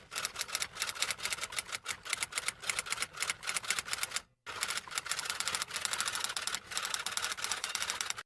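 Rapid typing: a quick, uneven stream of sharp key clicks, pausing briefly about four and a half seconds in before carrying on.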